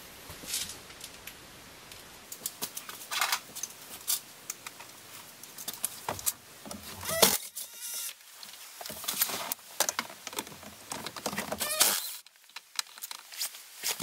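Scattered clicks, rattles and knocks of tools and hands working at a car's steering wheel, with a few louder clatters near the middle and end.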